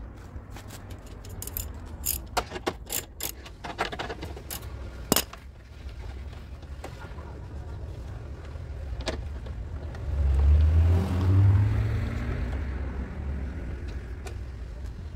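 Sharp clicks and knocks from parts being handled inside a stripped car door's inner panel, at the window regulator. About ten seconds in, a low rumble swells and then fades.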